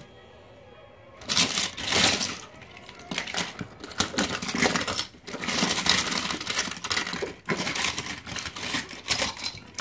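Rummaging close to the microphone: irregular clattering and rustling of small toys being handled, starting about a second in.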